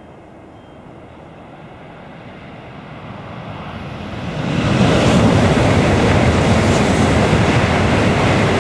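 Shinkansen bullet train passing close by at high speed, heard from behind a trackside sound barrier: a rush of noise that builds and, about four and a half seconds in, swells quickly to a loud, steady roar that holds.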